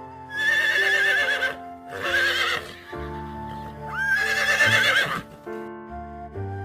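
Horse whinnying three times, each call a high, quavering neigh of about one second, over background music.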